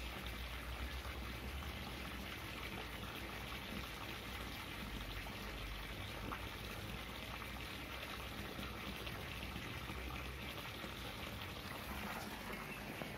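Steady rush and trickle of running water.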